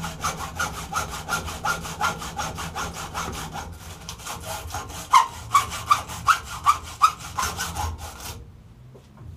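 Hacksaw cutting through the copper winding end-turns of an electric motor stator in quick back-and-forth strokes, about three a second. The strokes grow louder a little past the middle and stop about a second before the end.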